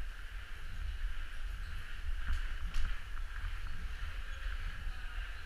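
Downhill mountain bike descending wet pavement, heard from a helmet camera: low wind rumble on the microphone over a steady hiss of tyres on the wet surface, with two sharp knocks from the bike a little over two seconds in.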